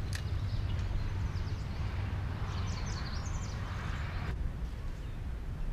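Wind rumbling on the microphone, with a fishing reel being cranked to retrieve line after a cast; the cranking stops suddenly about four seconds in.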